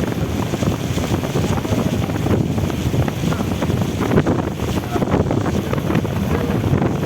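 Steady rush of floodwater, with wind buffeting the microphone.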